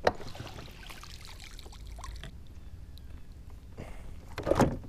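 A sharp knock on the plastic fishing kayak, then faint splashing and dripping water with small handling knocks as a just-caught fish is held over the side. Near the end comes a brief grunt-like vocal sound.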